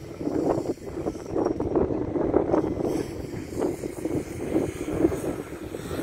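Wind buffeting the microphone in irregular gusts, a rough rushing noise with no steady tone.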